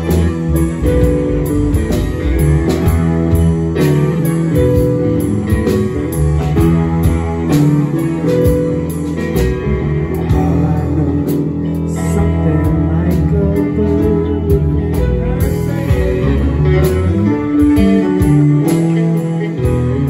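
A live rock band plays an instrumental passage: electric guitar, bass, a drum kit with cymbals and a keyboard. The music runs at a steady loud level with a regular drum beat.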